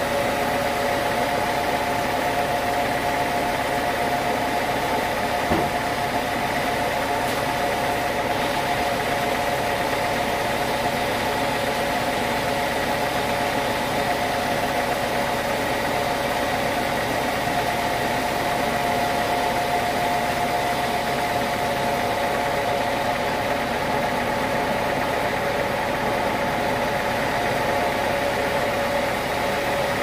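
Band sawmill running steadily without cutting, a constant machine hum with a few steady tones. One short knock about five seconds in.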